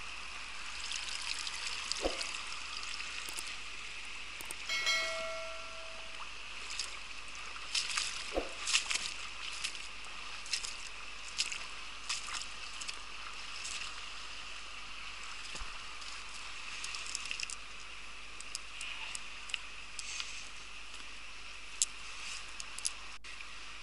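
Shallow stony river water running steadily, with scattered splashes, drips and sloshes as a wet nylon cast net is hauled in through the water. A brief pitched tone sounds about five seconds in.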